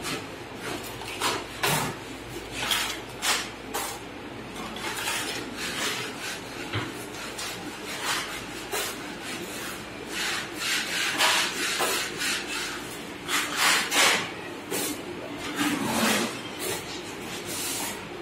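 A broad steel putty blade scrapes wall putty across a wall in repeated irregular strokes, with a rasping scrape on each pass.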